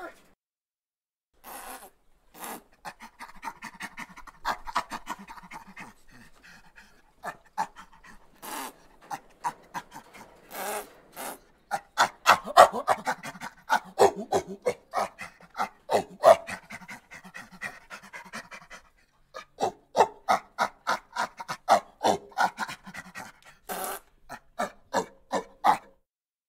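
An animal calling in rapid runs of short, breathy pulses, several a second, in bouts broken by a few brief pauses.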